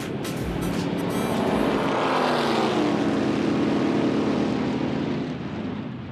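Race car engine passing at speed. It swells over the first two seconds, drops in pitch as it goes by, then carries on steadily and starts to fade near the end.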